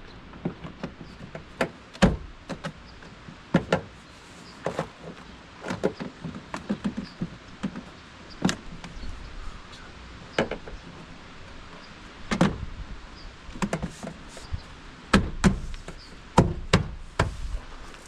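Irregular taps, clicks and knocks of hand work on a car's tailgate, as plastic trim pieces and clips are handled and pressed back into place, with a few heavier thumps.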